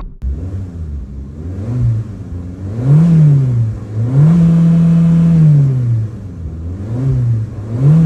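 Suzuki Swift's 1.2-litre four-cylinder engine revved in neutral while stopped, rising from idle and falling back several times: quick blips about two and three seconds in, a longer held rev in the middle, then two more quick blips near the end.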